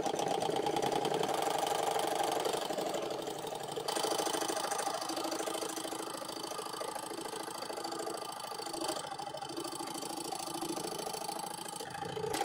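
Electric drill running a homemade table scroll saw, its blade moving up and down to cut a half-inch piece of wood, with a fast, even rattle. A little louder in the first few seconds.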